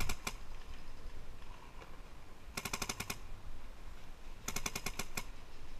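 Paintball markers firing rapid strings of shots. Two half-second volleys come about two seconds apart, after the last few shots of an earlier string right at the start.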